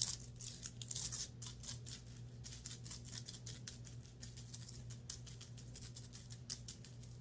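Quick, crisp scratching and rubbing strokes on a clothing top, up close, denser and louder in the first second or so, over a steady low hum.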